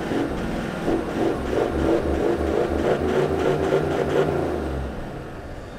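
Toyota LandCruiser 70-series ute's engine revving under load as its wheels spin in soft sand, throwing up sand while it digs itself in until bogged. The engine eases off near the end.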